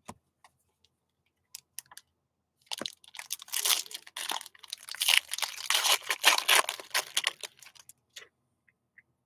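A few light taps of cards being handled, then about five seconds of crinkling and tearing as a foil trading-card pack wrapper is ripped open and crumpled.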